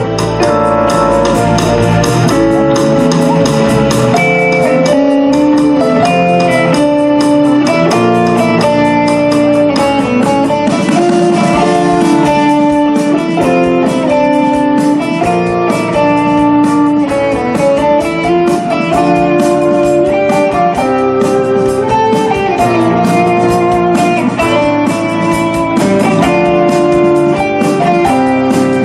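Live rock band playing an instrumental passage, with electric guitar carrying a melodic line over the band.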